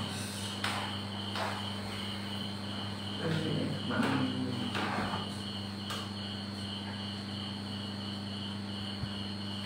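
A cricket chirping in an even, unbroken pulse. Several short scratching strokes of a marker pen writing on a whiteboard sound over it in the first half. A low electrical hum runs underneath.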